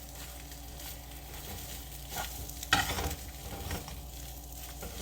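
Eggs frying in oil in a skillet with a steady low sizzle. A utensil scrapes and taps against the pan a few times near the middle, the loudest stroke just under three seconds in.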